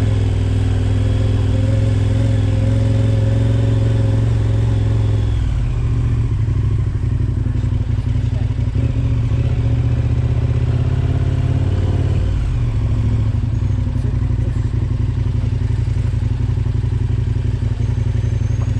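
A vehicle engine running steadily on the move, its note dropping about five seconds in and picking up again around twelve seconds.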